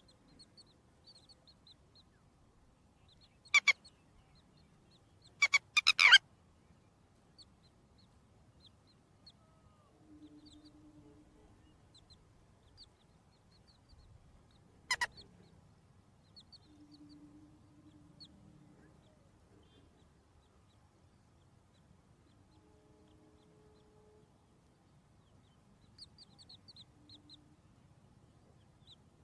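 Chicks peeping softly and repeatedly, with a few short, sharp, loud calls: one a few seconds in, a quick cluster about six seconds in, and one midway. A few low, drawn-out notes come in between.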